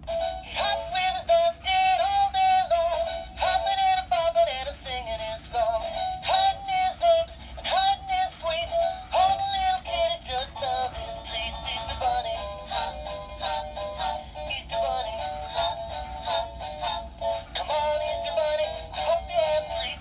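Gemmy animated Easter bunny's built-in song playing through its small, tinny speaker: a high, sped-up singing voice over backing music.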